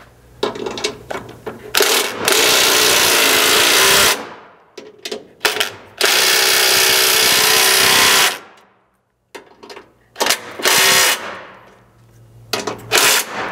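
Cordless impact wrench hammering skid plate mounting bolts tight. It runs in a few short bursts, then two long bursts of about two seconds each, then more short bursts near the end.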